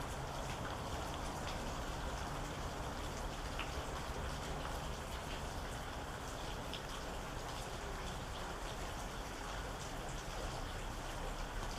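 Steady rain, a constant hiss with scattered individual drops ticking over it.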